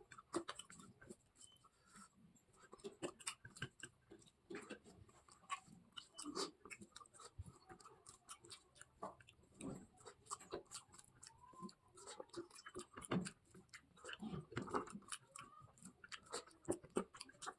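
A person chewing food in irregular, faint bursts with small clicks, close to the microphone.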